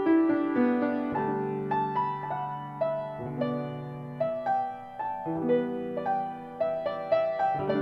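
Background piano music: a soft, slow melody of sustained notes over held low notes.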